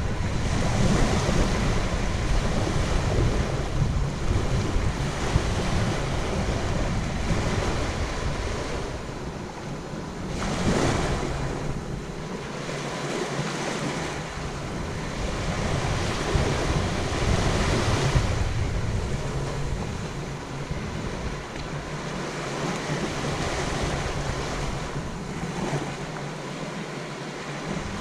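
Surf from the Indian Ocean washing onto a sandy beach, swelling and easing in waves. Wind buffets the microphone in gusts, adding a low rumble that comes and goes.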